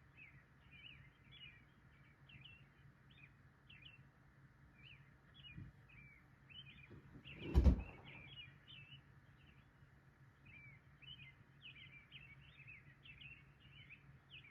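Small birds chirping over and over in short, quick, high twittering notes, faint, over a low steady hum. About halfway through there is a single dull thump, the loudest sound, with a lighter knock a couple of seconds before it.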